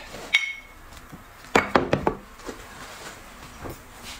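Chopsticks and tableware knocking and clinking against plates and bowls: a handful of separate sharp clicks, the first, about a third of a second in, ringing briefly, with a quick cluster of knocks a little past the middle.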